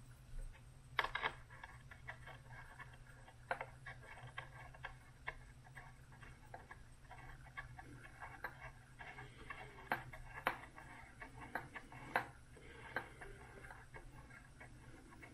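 Faint scattered clicks and light handling noises of a small titanium linkage rod being threaded by hand into its fitting at an RC servo arm, over a low steady hum.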